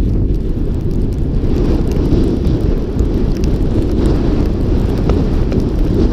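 Wind buffeting the microphone of an action camera worn by a snowboarder riding down through snow, a steady rumble, with the lighter hiss of the board sliding over the snow.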